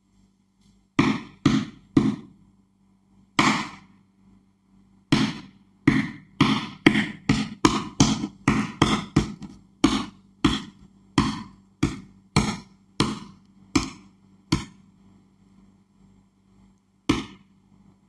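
An eggshell tapped against a tabletop to crack it: a long series of sharp taps, coming about two a second in the middle and thinning out toward the end.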